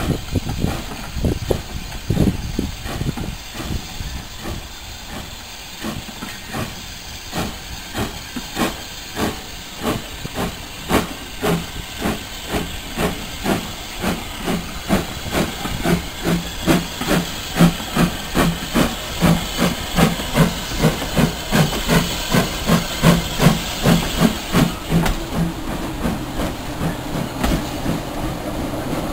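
Small steam tank locomotive chuffing as it pulls a coach away, its exhaust beats quickening from about one to about three a second over a steady hiss of steam. The beats fade in the last few seconds.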